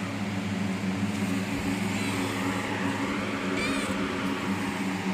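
Steady mechanical hum from a running household appliance, with a brief high squeak about three and a half seconds in.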